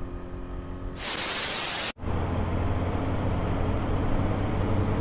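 Riding noise from a motor scooter: wind rush and engine. About a second in a loud, even hiss breaks in and cuts off sharply just before the two-second mark, after which a steady wind rush with a low engine drone carries on.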